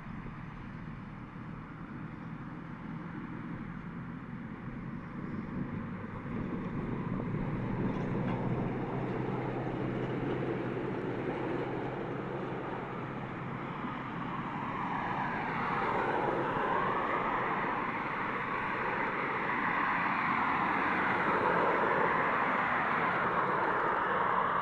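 JCB excavator's diesel engine running steadily, growing louder partway through and again in the second half.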